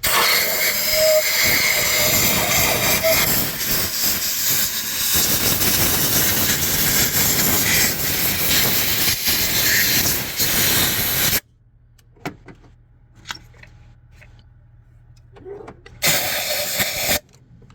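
Compressed-air blow gun blasting out the engine's coil and spark-plug wells: one long hiss of about eleven seconds that cuts off suddenly, then a second short blast of about a second near the end.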